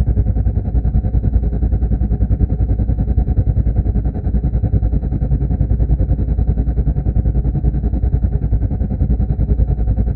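Helicopter heard from inside the cabin: the engine and rotor running steadily, muffled, a deep drone with a fast, even pulsing beat and a faint high whine over it.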